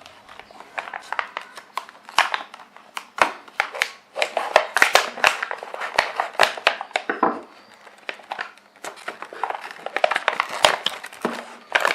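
Product packaging being torn open and handled: irregular crinkling, rustling and sharp clicks.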